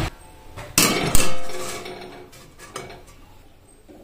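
Steel cookware clanking on an iron kadai: a light clink, then a loud metal clank about a second in that rings and fades, and another smaller clink near three seconds.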